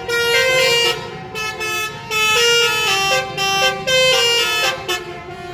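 Bus 'basuri' telolet horn playing a melody as a string of held, stepped notes, with short breaks about one and two seconds in.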